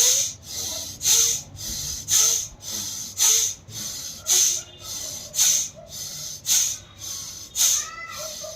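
A woman's forceful rhythmic breathing in a pranayama arm-and-breath exercise. A sharp, loud rush of air comes about once a second, with a softer breath between each pair.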